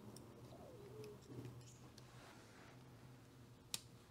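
Near-quiet workbench with a few faint ticks, then one sharp snip about three and a half seconds in: flush cutters clipping a component lead on a transistor radio's circuit board.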